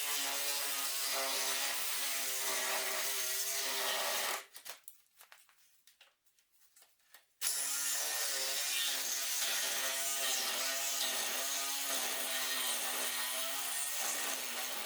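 Power saw with a DeWalt Double Life blade cutting through car body steel, a steady whine that wavers with the strokes. It stops suddenly about four seconds in and starts cutting again about three seconds later.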